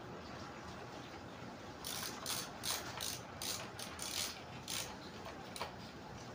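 A hand screwdriver working screws on the motorcycle's handlebar and headlight cover. It makes a run of about nine short, scratchy clicks, a few a second, from about two to five seconds in.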